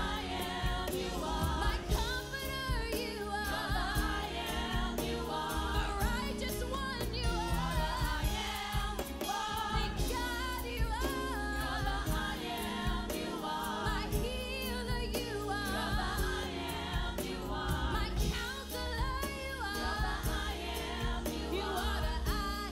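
Gospel song playing: several voices singing with vibrato over a steady instrumental backing.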